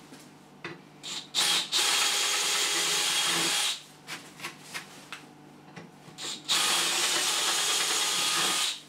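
DeWalt cordless drill boring out holes in aluminium chequer plate to 7 mm. It runs in two spells of about two seconds each, the first after a couple of short trigger blips, with small clicks between them.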